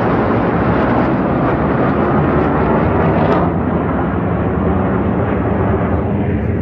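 Military aircraft flying past overhead: loud, rumbling engine noise that grows duller and a little quieter about halfway through as it moves away.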